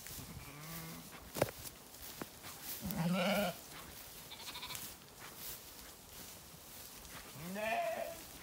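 Zwartbles sheep bleating: a faint bleat early, a loud one about three seconds in, and another near the end that rises in pitch. A brief sharp click sounds shortly before the loud bleat.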